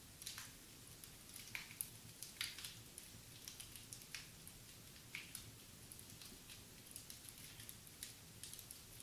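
Wood fire crackling in a fireplace: irregular sharp pops and snaps, a few of them louder, over a faint steady hiss.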